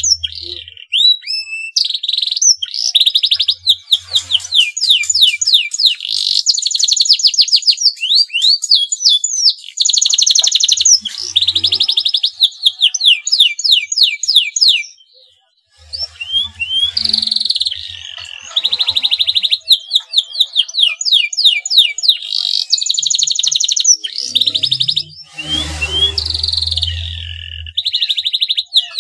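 Male domestic canary in breeding condition singing loudly in fast trills and sweeping chirps, one run after another, with a short pause about halfway through.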